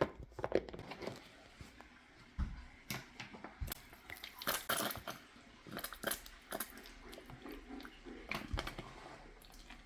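Irregular clicks, crinkles and crunches of tarantula shipping packaging and plastic containers being handled and opened, the busiest stretch in the middle.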